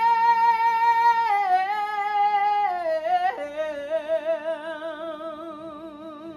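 Solo female voice singing a long melisma on one held syllable. A high sustained note steps down twice, then a lower note is held with wide vibrato and fades away near the end.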